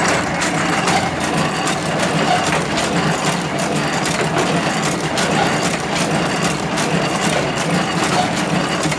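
Thread book-sewing machine running, a steady, fast mechanical clatter of many small clicks.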